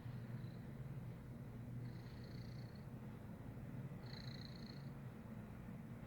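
Domestic cat purring steadily, a low continuous rumble, with two brief high-pitched tones over it.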